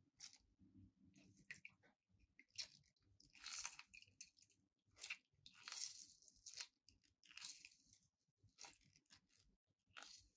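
Sudachi (Japanese lime) being squeezed by hand inside a small mesh strainer: faint, irregular crunching and squishing of peel and pulp, several squeezes in a row, the strongest about three and a half and six seconds in.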